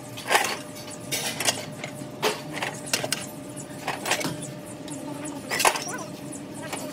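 Irregular metallic clinks and knocks, about a dozen spaced unevenly, from metal parts or tools being handled, over a steady machine hum; one knock near the end rings briefly.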